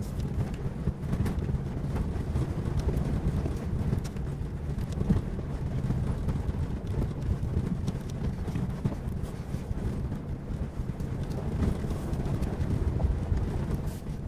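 Narrow-track Japanese off-road vehicle driving over a loose gravel and rock mountain track, heard from inside the cabin. A steady low rumble from the engine and tyres is broken by frequent irregular knocks of stones under the wheels.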